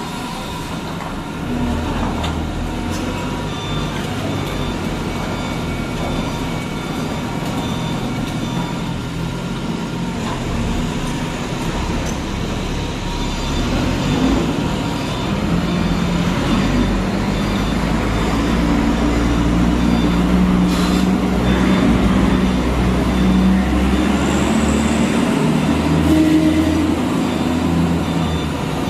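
Caterpillar hydraulic excavator's diesel engine running under digging load, its pitch shifting as the boom and bucket work, growing louder about halfway through.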